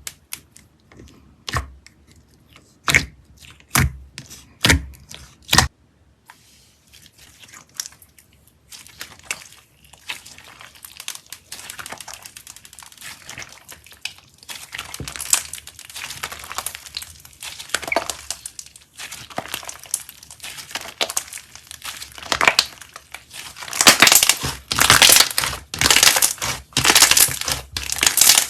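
Slime being squeezed and worked by hand: about six sharp pops in the first six seconds, then a stretch of dense crackling and crinkling that grows louder toward the end.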